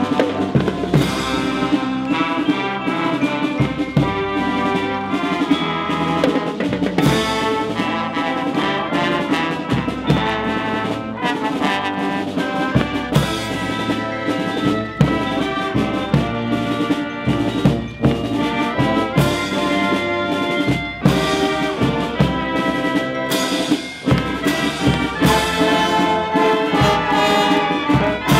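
Military brass band playing a lively tune, with trumpets, trombones and tuba over drums striking a steady beat.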